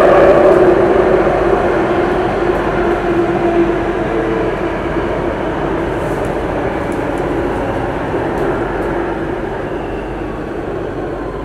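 Singapore MRT Circle Line train heard from inside the carriage as it slows into a station: the running noise of wheels on rails and the motors grows steadily quieter, and near the end a faint motor whine falls in pitch as the train brakes.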